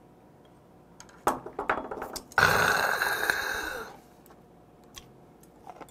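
A man swallowing a cup of strong liquor in a few quick gulps, then letting out a loud raspy exhale from the throat for about a second and a half, the 'khaa' that follows a harsh drink.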